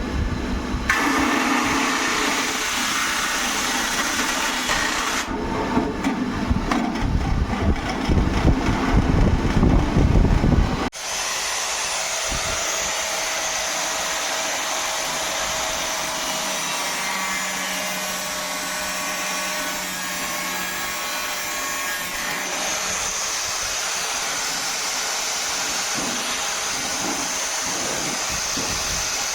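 A small electric motor, such as a power tool, runs with a steady whir in several edited segments. For the first ten seconds or so it is louder, with a rough, uneven low rumble. After an abrupt cut it settles into a smoother, steadier hum.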